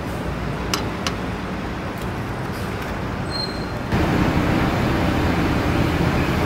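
Steady rumble of road traffic, with two sharp metal clicks about a second in from the vendor's knife and spatula against the cast-iron baking molds. The traffic rumble jumps louder about four seconds in.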